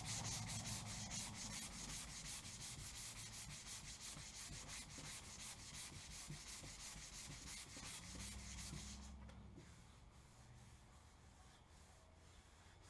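Hand sanding of body filler on a pickup truck door with a sandpaper-wrapped sanding block. Quick back-and-forth scratching strokes die away about nine seconds in.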